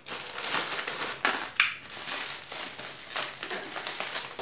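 Plastic courier pouch and bubble wrap crinkling and rustling as a parcel is torn open by hand, with one sharp crack about a second and a half in.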